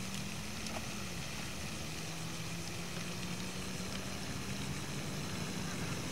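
A steady low engine hum that dips slightly in pitch about a second in, over a steady hiss.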